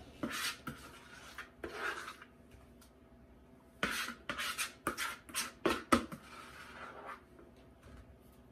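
Scattered kitchen handling sounds: short scrapes and rubs with sharp light clicks, like a serving scoop and dishes being worked over the counter. The clicks come thickest about four to six seconds in, with quieter stretches around three seconds in and near the end.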